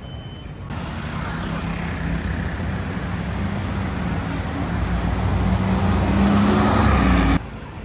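A motor vehicle's engine drawing closer, growing steadily louder with its pitch rising slightly, then cut off abruptly near the end.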